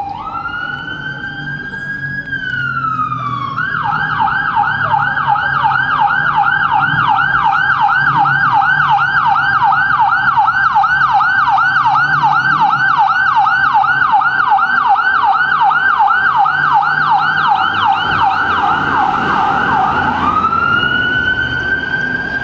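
Ambulance electronic siren on an emergency run: a slow wail rising and falling, then a fast yelp of several up-and-down sweeps a second, then back to the slow wail near the end. It is loudest in the middle as the ambulance passes, with engine and traffic rumble underneath.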